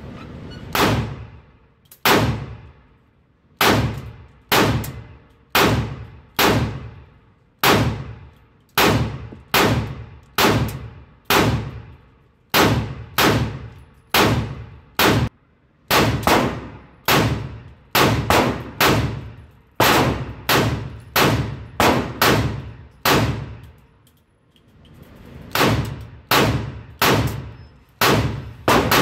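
Semi-automatic pistol firing a long string of shots at an indoor range, about one a second, each crack ringing off the range walls. There is a short pause a few seconds in and another about three-quarters of the way through.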